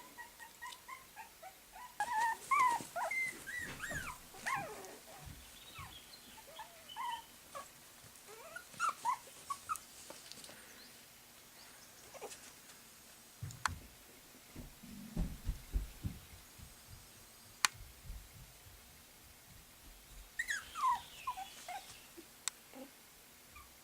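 Puppies whimpering in short high-pitched cries, in clusters about two seconds in, around nine seconds and again near the end. Low thumps and a few sharp clicks come in the quieter middle stretch.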